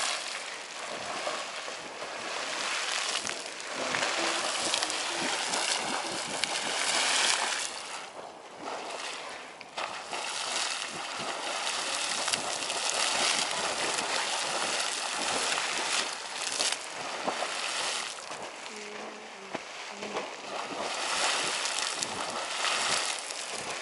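Hot spring geyser erupting: water splashing and sloshing in a continuous rush that surges and eases, dipping briefly near the middle.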